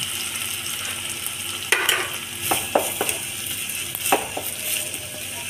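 Chopped onions sizzling in hot oil in a pot as they are stirred, with a spatula knocking against the pot a few times.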